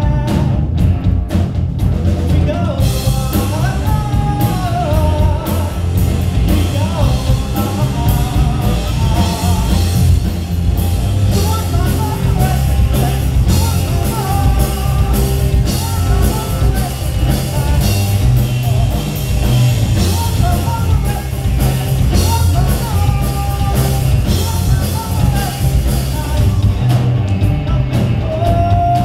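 Live rock band playing: electric guitars and a drum kit, with a man singing over them. The cymbals fill in about three seconds in.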